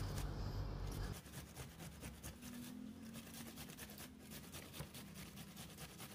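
Onion being grated by hand on a stainless-steel box grater: a quick run of rasping strokes, a little louder in the first second.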